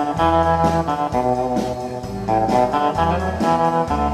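Instrumental intro of a honky-tonk country song: held melody notes over a walking bass line, before the vocal comes in.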